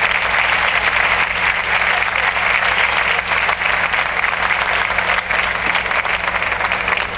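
A large audience applauding, the dense, even clatter of many hands clapping at a steady level, with a steady low hum underneath.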